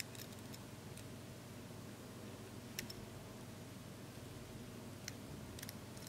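Lock pick and tension wrench clicking against the pins inside a laminated steel padlock: a few faint, sparse metallic ticks, the sharpest about three seconds in and a small cluster near the end, over a steady low hum.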